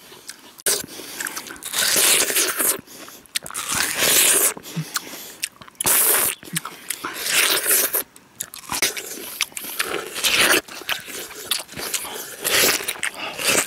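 People biting into and chewing juicy slices of raw watermelon close to the microphone, with repeated crunchy bites about a second or two apart.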